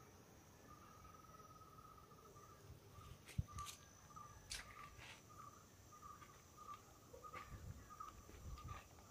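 Faint insects chirring in a steady, pulsing trill, with a thin high steady tone above it. From about three seconds in come a few sharp clicks and soft low thumps.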